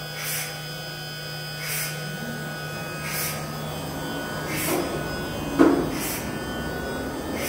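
Thermwood gantry CNC router running as its head and table travel. A steady hum stops a little past halfway, a soft hiss repeats about every second and a half, and a single loud clunk comes about three-quarters of the way through.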